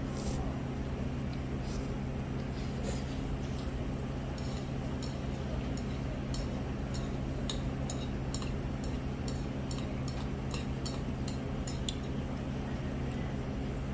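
Chopsticks and tableware clicking against a dish, a few scattered clinks and then a quick run of about two to three light taps a second, over a steady low hum.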